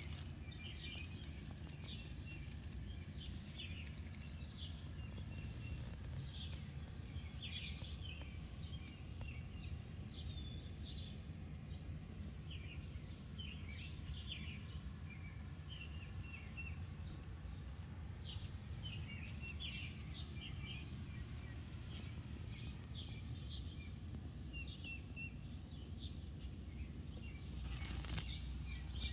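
Several small birds chirping and calling in short high notes throughout, over a steady low background rumble, with a brief louder rush of noise near the end.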